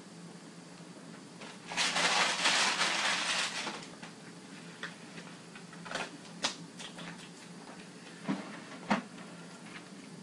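A loud rustle lasting about two seconds, then a few light clicks and knocks scattered over the following seconds.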